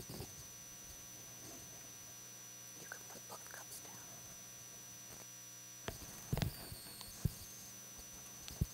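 Quiet room with a steady high electrical whine and hum; in the second half a few soft knocks and rustles as ceramic communion cups are handled and set down on a wooden table.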